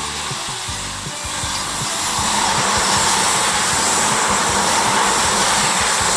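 Electric train passing at speed: a steady roar of wheels and running gear that grows louder about two seconds in.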